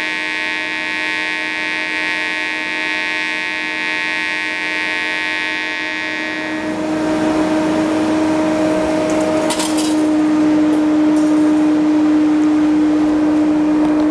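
Pulsed DC TIG welding arc buzzing steadily from a Parweld XTM211Di, pulsing between about 140 A peak and 70 A background at roughly 80 Hz while laying a bead on stainless plate. About halfway through the buzz gets louder and rougher, with a few brief crackles.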